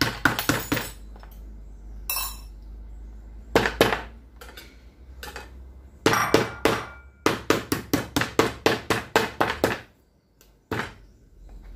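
Metal meat tenderizer mallet pounding slices of raw beef on a cutting board to tenderize the meat: groups of sharp knocks, the longest a fast run of about five a second, with short pauses between.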